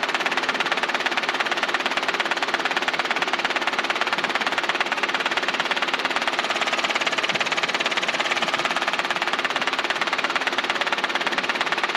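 Robinson R22 helicopter's main rotor blade slap, heard through the headset intercom: a rapid, steady train of sharp pulses over the engine and rotor noise. It is brought on by the descent, at a descent rate and airspeed that make the blades slap.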